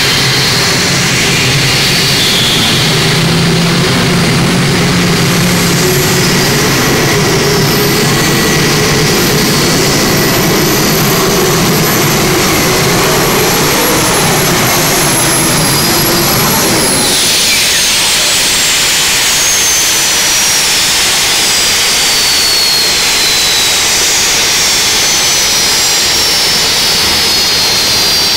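Gas-turbine-powered modified pulling tractor running flat out with a loud, steady high turbine whine. A little past halfway the power comes off and the whine falls steadily in pitch as the turbines spool down at the end of the pull.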